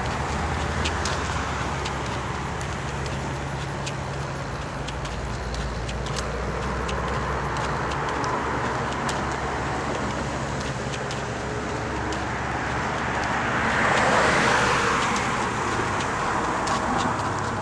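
Road traffic passing on a roadway beside a pedestrian, with one vehicle passing close and loudest near the end. Light ticks, about one every half second to a second, run throughout, in step with walking.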